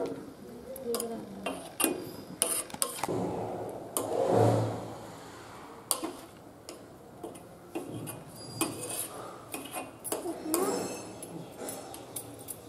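Metal spoon stirring moringa leaves and grated coconut in a metal pot, with irregular clinks and scrapes against the pot's side.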